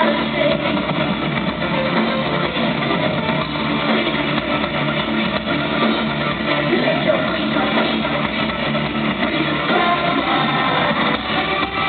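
Live industrial rock band playing loud distorted electric guitars and bass with a steady beat, heard as a muffled, distorted crowd recording. No vocals.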